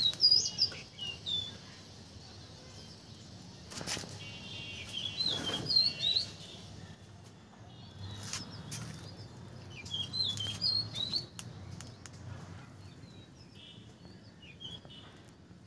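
Small birds chirping in short bouts of quick, high, sweeping notes, four bursts or so, with a few sharp clicks in between.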